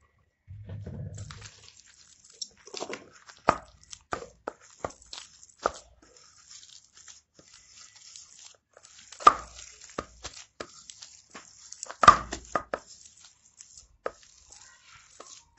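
Bare hand kneading a wet mash of boiled elephant foot yam and gram flour in a steel bowl: soft squelching and scraping with irregular sharp knocks of the hand against the bowl, the loudest about 9 and 12 seconds in.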